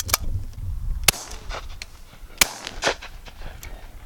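12-bore shotgun shots at an incoming bird: two loud sharp cracks about a second and a half apart, with fainter sharp cracks near the start and just after the second shot.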